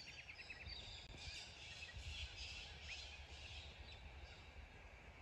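Faint outdoor ambience of wild birds calling: scattered short calls and a couple of brief rising chirps over a low steady rumble.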